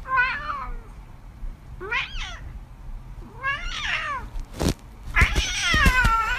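Ginger cat meowing four times, each call rising and falling in pitch, the last one the longest. A short thump comes between the third and fourth meows.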